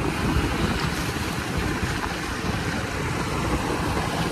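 Mercury outboard-powered boat running at speed: a steady engine drone mixed with rushing water from the hull and wake, and wind buffeting the microphone.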